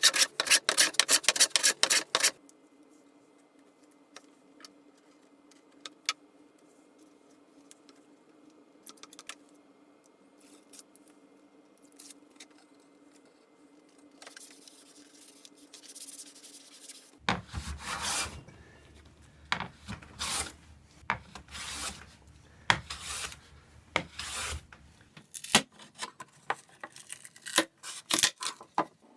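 Hand tools working wood: runs of rapid, repeated rasping strokes at the start and again from about two-thirds of the way in, with a quieter stretch of scattered taps and clicks between them.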